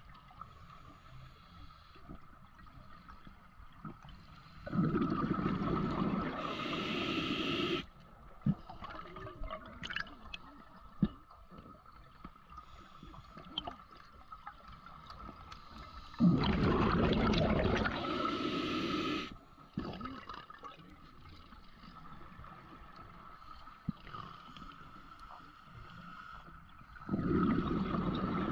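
Scuba diver breathing through a regulator underwater: three bursts of exhaled bubbles, each about three seconds long and about eleven seconds apart. Faint clicking and crackling in the water between breaths.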